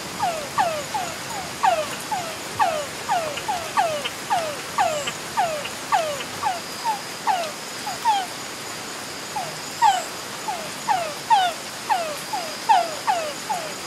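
Frogs calling in a chorus of short notes, each sliding down in pitch, several a second, overlapping, with a brief lull a little past the middle. A faint steady high tone runs beneath them.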